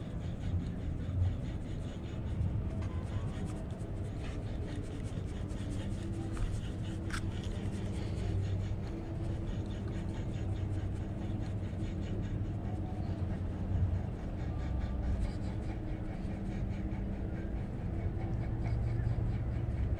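Faint rapid ticking from a Shimano Sustain spinning reel being cranked to retrieve a lure, over a steady low rumble.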